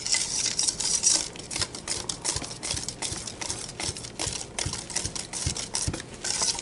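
Wire whisk beating red velvet cake batter by hand in a stainless steel mixing bowl: rapid, irregular clicks and scrapes of the wires against the metal.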